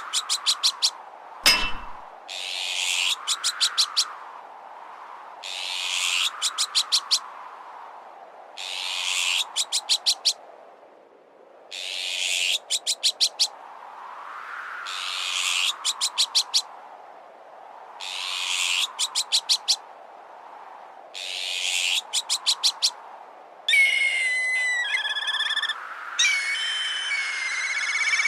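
Azure-winged magpie alarm calls, each a harsh rasp followed by a quick run of about six clipped notes, repeating about every three seconds over strong wind that swells and fades. A single sharp metallic strike hits about a second and a half in. Near the end a different whistled call, a black kite, sounds for a few seconds.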